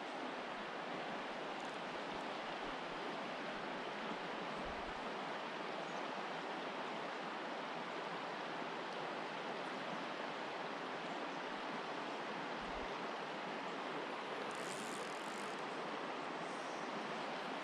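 Steady rush of a small creek's water running over rocks.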